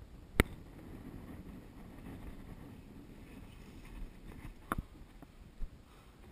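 Sharp knocks from scrambling on granite rock: one loud click about half a second in and a quick double click near the end, over a low rustle of wind and movement on the microphone.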